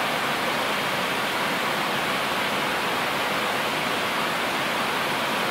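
Steady rushing air noise on an Airbus A321neo flight deck at cruise, an even hiss with no changes.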